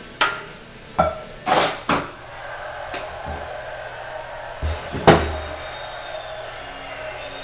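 Frying pan and utensil clattering as cooked chicken pieces are turned out of the pan into a bowl: a run of sharp knocks and clanks with a short scrape, the loudest knock about five seconds in.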